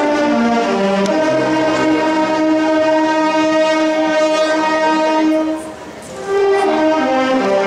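Brass band playing a slow funeral march: long held chords, with a short break about six seconds in before the next chord.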